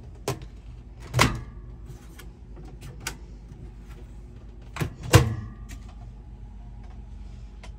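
Microwave oven door opened about a second in with a click, then swung shut with a double latch clunk, the loudest sound, about five seconds in.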